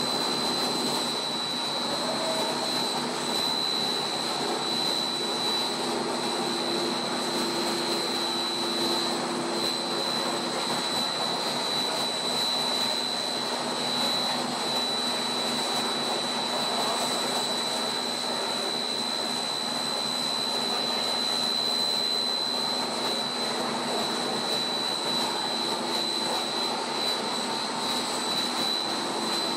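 Monolayer blown film extrusion line running: a steady machine noise with a constant high-pitched whine over it and a low hum.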